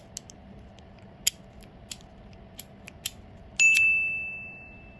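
Light metallic clicks of a newly cut car key being worked in a lock, a few scattered taps and clicks. Then, past the middle, a single bright high ding that rings out and fades slowly; it is the loudest sound here.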